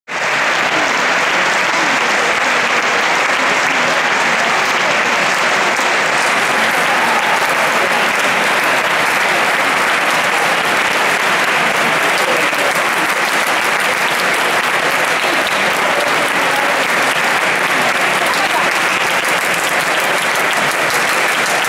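Concert-hall audience applauding steadily: a dense, even clapping that does not let up.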